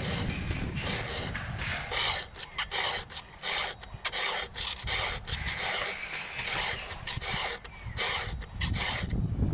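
Round chainsaw file from a Husqvarna sharpening kit, filing the cutters of a saw chain in a run of short rasping strokes, about two a second.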